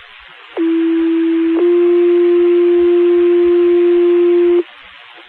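Two-tone sequential radio paging tones, the alert that sets off firefighters' pagers before a dispatch page: one steady tone for about a second, then a slightly higher tone held for about three seconds, stopping abruptly. Radio hiss runs underneath.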